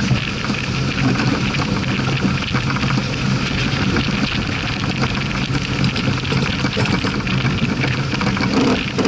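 Wind buffeting the microphone aboard a heeled sailing yacht under way, with water rushing and splashing along the hull.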